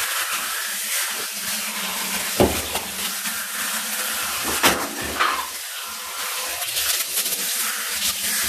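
Water spraying steadily from a handheld shower-brush head onto a cat's wet fur in a bathtub, a continuous hiss. A few short sharp knocks stand out about two and a half and five seconds in.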